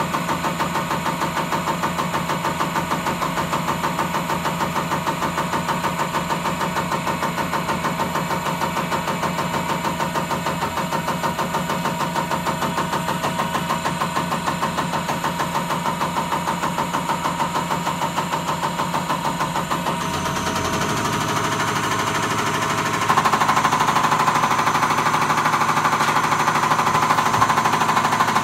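Beacon BCS815S diesel pump test bench driving an electronic unit pump (EUP) on its cam box: a rapid, even mechanical knocking. About twenty seconds in the sound shifts, and a few seconds later it steps up louder.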